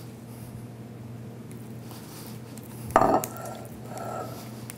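Olive oil bottle and metal tongs handled over a cutting board: a sharp clink about three seconds in, followed by a couple of softer clinks, over a steady low hum.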